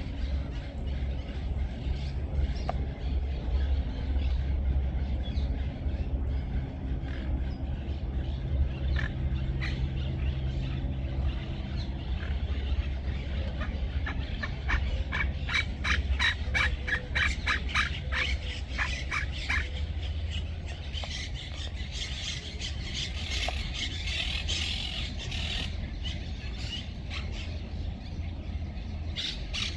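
Small birds calling: a fast run of sharp, evenly spaced chirps about halfway through, followed by a denser high chattering, over a steady low rumble.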